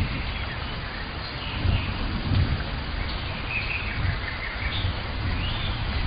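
Rainforest ambience: a steady hiss of rain with an uneven low rumble beneath it, and a few short bird calls above.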